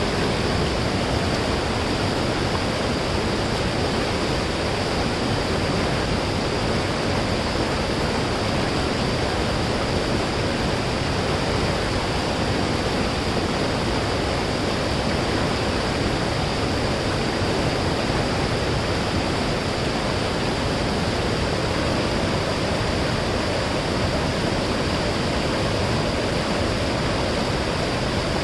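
Mountain stream rushing over rocks: a steady, loud, unbroken rush of flowing water.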